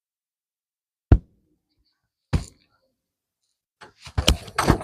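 Hard knocks from work on a roof tile: a single sharp knock about a second in, another just over a second later, then a quick run of knocks and scraping near the end.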